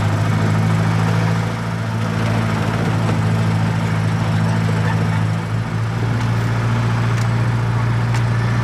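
Seafront land train's road engine running steadily while it tows the carriages, heard from an open carriage: a constant low drone with a hiss of road noise over it.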